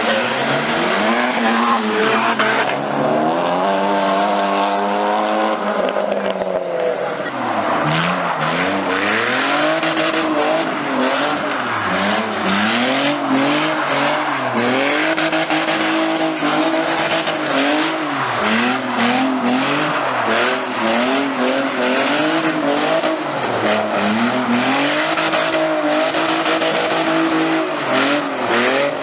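Car engine revving hard, its pitch rising and falling over and over every second or two, over a steady hiss of tyres squealing and skidding, as in a drift or burnout.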